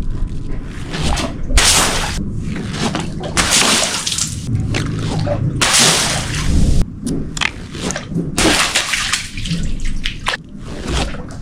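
Water sloshing and splashing in repeated noisy bursts, a second or two apart.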